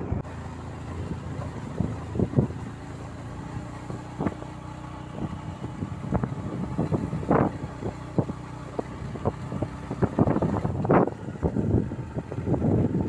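A motor vehicle's engine running steadily, with uneven wind noise on the microphone and scattered short knocks.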